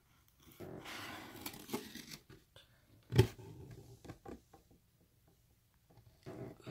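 Packaging of a beauty subscription box being torn open and handled, with tearing and crinkling paper. There is one sharp snap about three seconds in, the loudest sound, then a short pause and a little more rustling near the end.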